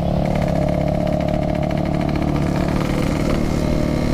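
Yamaha RX-King 135cc two-stroke single-cylinder engine running steadily while riding, with a husky exhaust note, rising slightly in pitch near the end.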